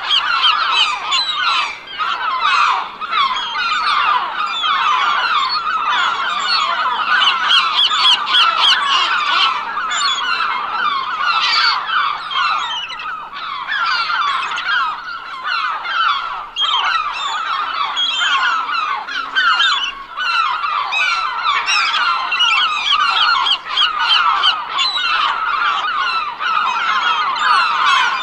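A large flock of gulls calling, with many short calls overlapping continuously and no break.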